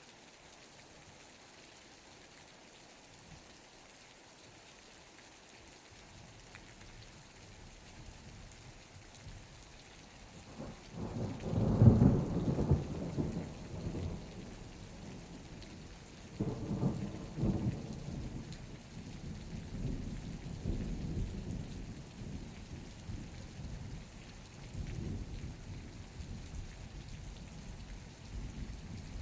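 Steady rain falling, with thunder rumbling in from about six seconds. A loud peal of thunder comes about twelve seconds in and a second one around seventeen seconds, and lower rumbles continue after that.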